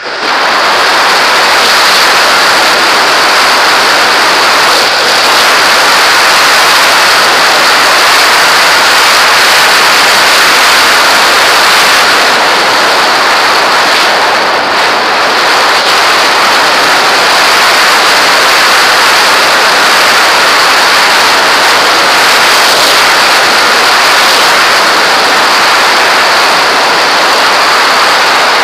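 Airflow rushing over an RC glider's onboard camera in flight: a loud, steady rush of wind noise with a steady high tone on top.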